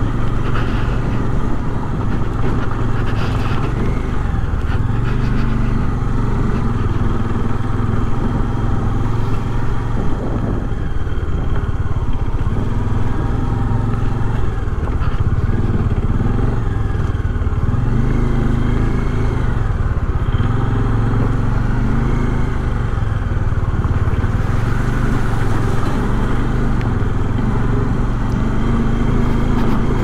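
Bajaj Dominar 400's single-cylinder engine running steadily while the motorcycle is ridden over a rough, broken road, its note rising and falling a few times with the throttle.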